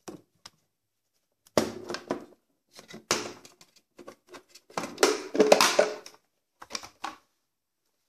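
The hard plastic dust container of a Samsung SC8870 cyclone vacuum cleaner being taken apart by hand. There are several short bursts of clicking, knocking and scraping plastic as the lid and filter grille are unclipped and the cyclone cup is lifted out.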